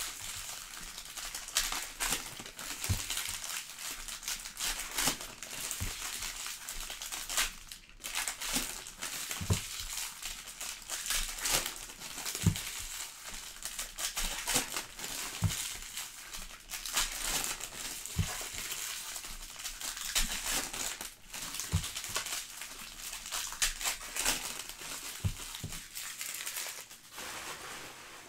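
Foil trading-card pack wrappers crinkling and crackling as packs are torn open and handled by hand, with occasional soft knocks.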